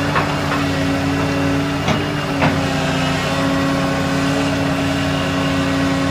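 Volvo EC160C excavator's diesel engine and hydraulics running steadily under load while it loads clay into a dump truck, with three short clunks in the first few seconds.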